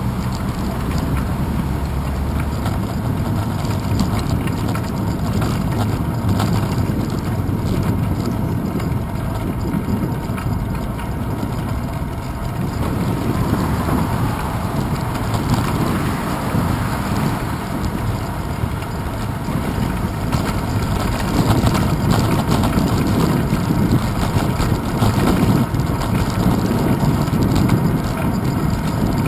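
Steady rushing wind noise and low road rumble picked up by a handlebar-mounted GoPro Hero 2 on a moving bicycle, growing a little louder in the later part.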